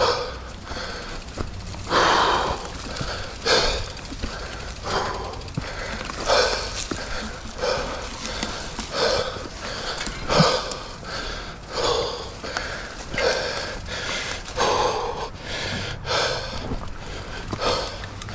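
Mountain biker breathing hard from the effort of riding, a loud breath about every second and a half, with a steady low rumble underneath.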